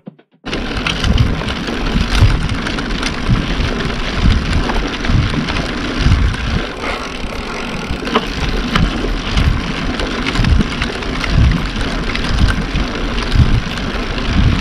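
Gusty wind rush on the microphone of a bicycle-mounted camera, over the hiss of the bicycle's tyres rolling on the road, starting about half a second in.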